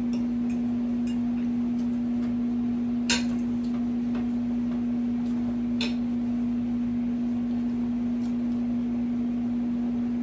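Eating at the table: a few short, sharp clicks and taps, the two loudest about three and six seconds in, over a steady low hum.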